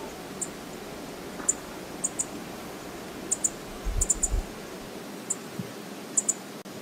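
Steady outdoor background hiss with short, high-pitched ticks, mostly in pairs, every second or so, and a few low thumps about four seconds in.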